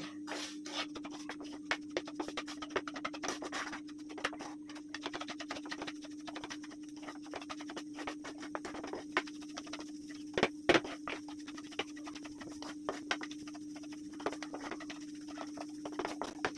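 Wooden spatula stirring and scraping a crumbly khoya, sugar and coconut mixture around a metal pan, with irregular scrapes and taps and a couple of louder knocks about ten seconds in. A steady low hum runs underneath.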